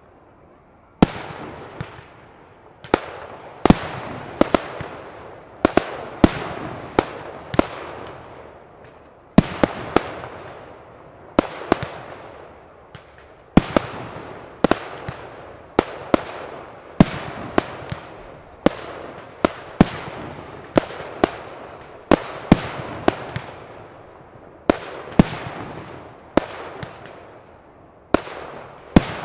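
Aerial fireworks bursting in a steady run of sharp bangs, about one a second and sometimes two in quick succession. Each bang is followed by a fading tail.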